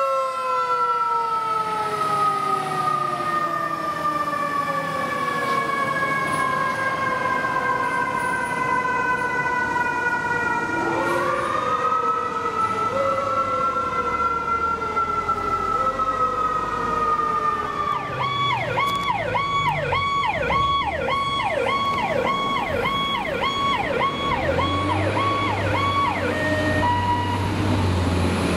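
Fire truck sirens: a long falling wail, a rising wail at about 11 seconds, then a fast yelp of about two cycles a second from about 18 seconds. A truck engine rumbles underneath near the end.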